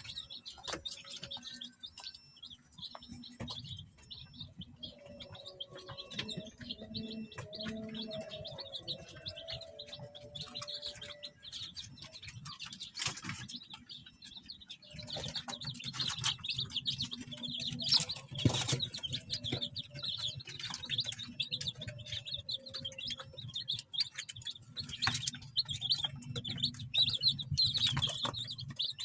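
A brood of day-old native chicks peeping constantly in a high chorus. Scattered sharp knocks and clicks come through, louder in the second half.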